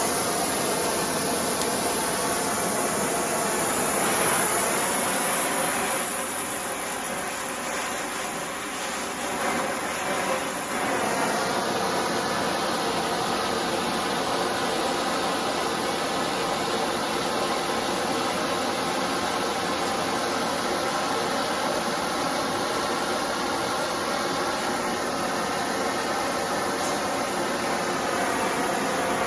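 Oxy-acetylene torch flame hissing steadily, starting suddenly and holding, a little louder a few seconds in.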